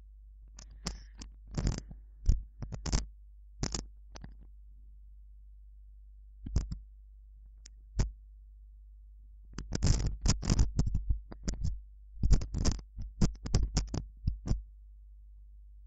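Computer keyboard typing: keystrokes clicking in irregular bursts, with a couple of single clicks near the middle and a longer run of quick keystrokes in the second half.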